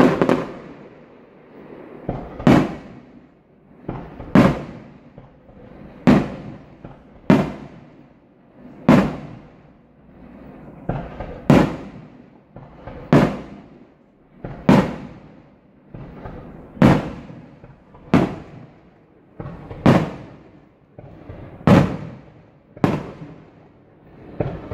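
Aerial firework shells bursting in a steady series of loud bangs, about one every one and a half to two seconds, each trailing off in a rolling echo.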